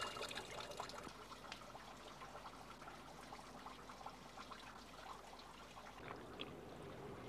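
Water trickling and splashing from a hand pump's spout, louder in the first second and then faint.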